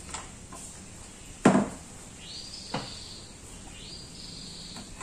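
Fishing-rod shipping package being handled and opened, with a loud knock or scrape about a second and a half in and a shorter sweeping scrape shortly after. A high call that rises and then holds repeats every second or two in the background.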